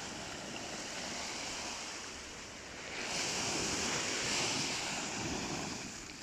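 Small waves breaking and washing up over a sandy beach, the surf swelling louder about three seconds in.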